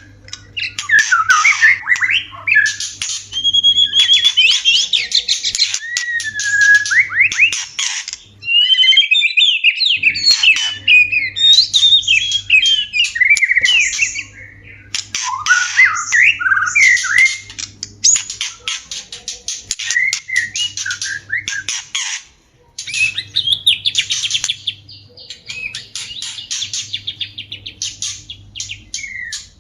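White-rumped shamas giving mating calls: rapid harsh chattering and ticking mixed with whistled notes that glide up and down. The calling breaks off briefly twice.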